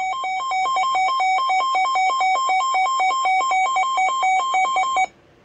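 A NOAA Weather Radio alert tone plays from a computer's speaker, switching rapidly back and forth between two pitches. It cuts off suddenly about five seconds in, the alert that comes before a broadcast severe thunderstorm warning.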